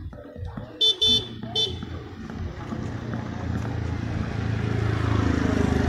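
Three short, high horn toots about a second in, then a motor scooter engine growing louder as it approaches and passes close.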